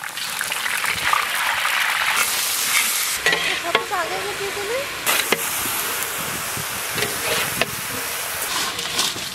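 Hot oil sizzling steadily as shredded potatoes deep-fry in a large wok, with occasional sharp clicks and scrapes of a metal slotted spoon stirring against the pan.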